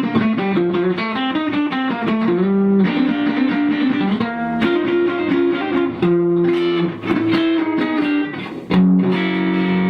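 Rickenbacker 325 electric guitar playing a single-note lead line, the notes stepping quickly up and down, ending on a held note near the end.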